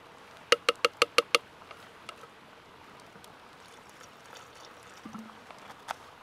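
A metal spoon tapped six times in quick succession against the rim of a steel cooking pot: short, ringing clinks.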